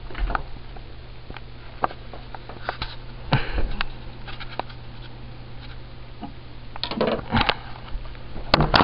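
Handling noise from a handheld camera: scattered small clicks, taps and rubbing as it is moved around, over a steady low hum.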